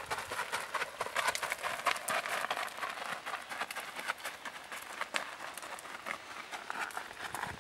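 Hoofbeats of a barefoot Tennessee Walking Horse on a gravel road: the quick, even four-beat patter of her gait, with the crunch of gravel, growing a little fainter as she moves away. It stops abruptly at the end.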